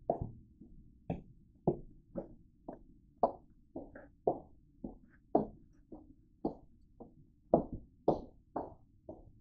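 Footsteps on a hard floor at a steady walking pace, about two steps a second.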